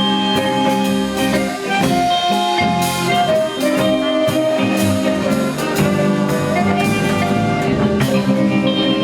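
Band playing an instrumental passage: drum kit keeping a steady beat under a sustained, held melodic lead line.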